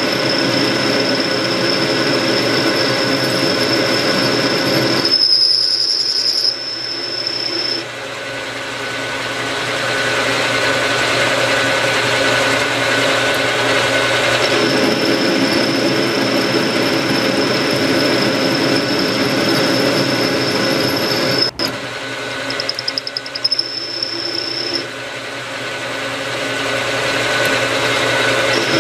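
Metal lathe running and turning a metal workpiece: a steady motor whine over the running and cutting noise. About five seconds in, and again a little after twenty seconds, the lower running noise drops away for a couple of seconds, leaving mostly the high whine.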